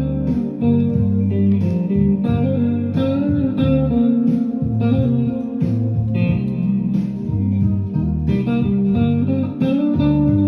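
Background music: a blues-style guitar tune with slide guitar over a steady beat.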